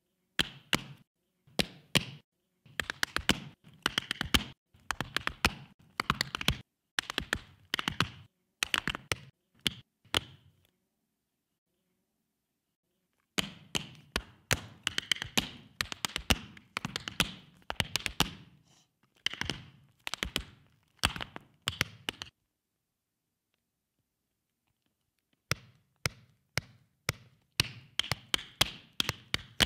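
Tap shoes striking the floor in quick, rhythmic phrases of unaccompanied tap dancing. The taps stop for about three seconds around ten seconds in and again just after twenty seconds in, then start again.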